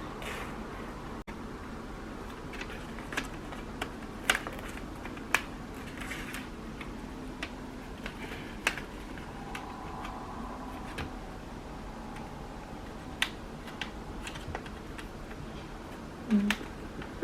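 Scattered, irregular sharp clicks and snaps as a plastic pry tool is worked around the edge of a Dell XPS 13 9360 laptop's bottom case, its clips popping loose as the cover lifts.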